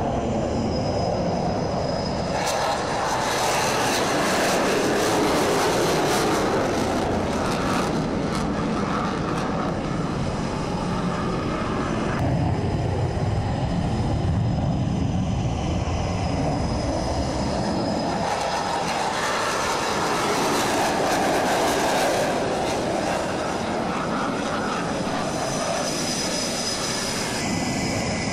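F/A-18 Hornet and Super Hornet fighter jets taking off in afterburner one after another: a loud, continuous jet roar that swells and changes character several times as successive jets go by, with a faint high engine whine near the start and end.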